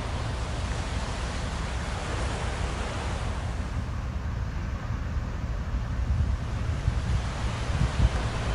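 Wind buffeting the microphone over a steady rush of water washing off a passing container ship's hull and bow wave. The hiss thins a little midway, and the low gusts grow stronger near the end.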